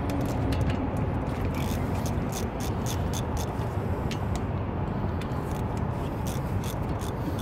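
Hand ratchet clicking in quick irregular runs as a front brake caliper bolt is worked loose, over a steady low background rumble.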